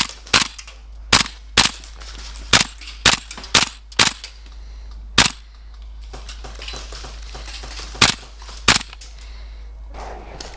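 Airsoft rifle firing single shots, each a sharp crack: about eight in the first four seconds at uneven intervals, one more a second later, then two near the eight-second mark, with fainter shots in between.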